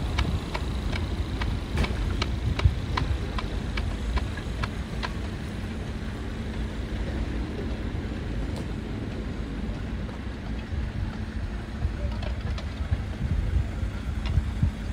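Diesel coach engine idling with a steady low rumble and hum. Over the first five seconds there is a run of quick, evenly spaced ticks, about two or three a second.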